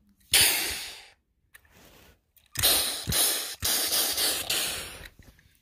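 A child's mouth-made crash sound effects: a hissing 'pshhh' burst, then after a pause a quick run of several more, each starting sharply and fading.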